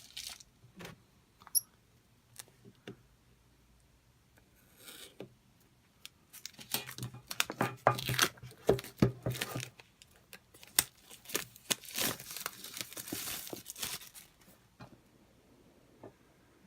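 Plastic shrink-wrap being torn off a phone's retail box and crumpled: a few scattered clicks of handling at first, then several seconds of dense crinkling and tearing, thickest a little after the middle.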